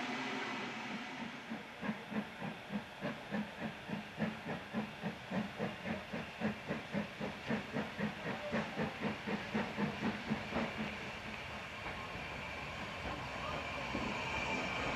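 Steam locomotive exhaust beats at about three a second, fading out after about eleven seconds, with a hiss of escaping steam at the start.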